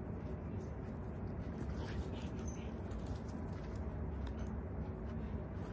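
Border collies making brief, excited dog sounds while chasing a flirt-pole lure, with faint scattered clicks over a steady low rumble.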